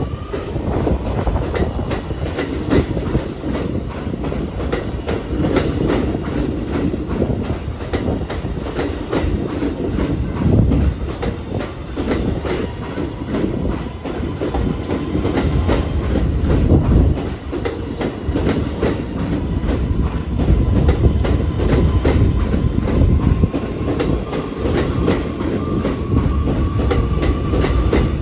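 New York City Subway A train running through the station, its wheels clattering over the rail joints with a steady rumble. A faint whine slowly rises in pitch through the second half.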